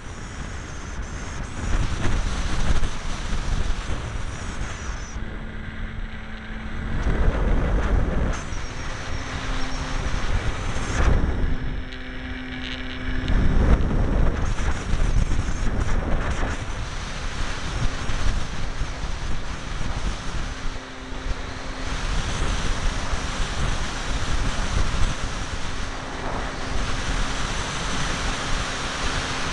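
Wind rushing over the microphone of a camera riding on a ParkZone T-28 Trojan foam electric RC plane in flight, swelling loudly a few times. Under it the plane's electric motor and propeller give a faint steady hum that comes and goes.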